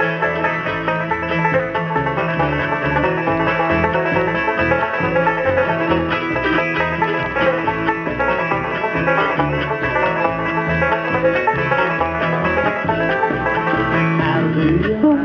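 Live bluegrass band playing an instrumental break, with banjo picking to the fore over guitar.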